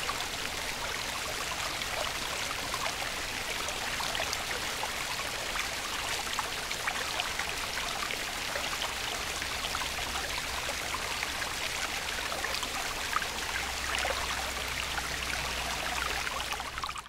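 Running water, a stream babbling steadily with fine crackling splashes, which stops abruptly at the end.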